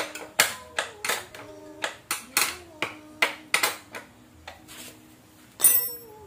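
Irregular sharp knocks and clicks of wooden lathe parts being handled as the tool rest is slid into place and clamped, about a dozen over the stretch, with the loudest near the end. Quiet background music plays underneath. The lathe motor is not running.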